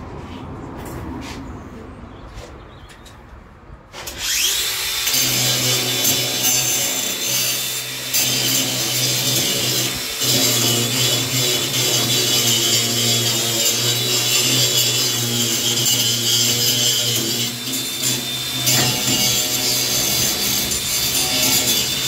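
Cordless angle grinder spinning up with a rising whine about four seconds in, then grinding against the steel bottom of a narrowboat hull. It runs steadily with a few brief dips.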